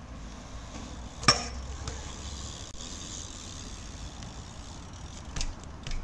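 BMX bike rolling over skatepark asphalt under a low steady rumble. A sharp metallic clack about a second in, and a few lighter clicks near the end.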